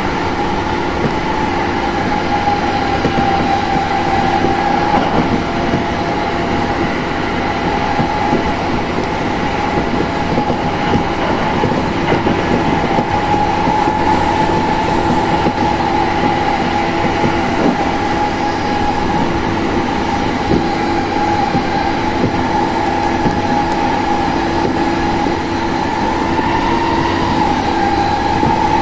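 Running noise heard inside the cabin of a JR Sobu Line Rapid electric commuter train (E217 series) travelling at speed: a steady rumble of wheels on the rails, with a steady whine running through it.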